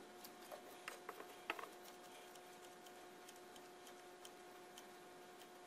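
Near silence with a faint steady hum, broken in the first two seconds by a handful of light plastic clicks from a hot glue gun being handled and its trigger squeezed while it heats up.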